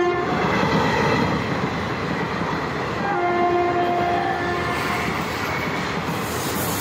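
Indian Railways express coaches passing at about 110 km/h, a steady loud rumble and rattle of wheels on rail. A train horn sounds for about a second and a half around three seconds in.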